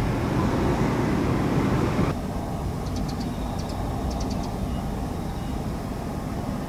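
Steady low rumbling background noise that changes and drops slightly at a cut about two seconds in, with a few faint, short high ticks between about three and four and a half seconds.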